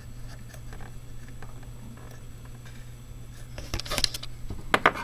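Small metallic clicks and rattles of a nut being tightened by hand onto a battery charger's circuit-breaker terminal, with a cluster of sharper clicks near the end, over a steady low hum.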